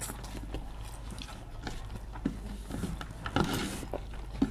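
People eating: chewing and biting, with scattered small clicks and a louder rustling burst about three and a half seconds in.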